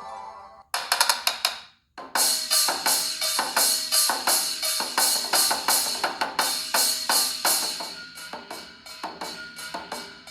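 A preloaded Google Pixel 3a ringtone playing: a drum-like percussive pattern of sharp hits, about four a second. It briefly stops about two seconds in, then starts again.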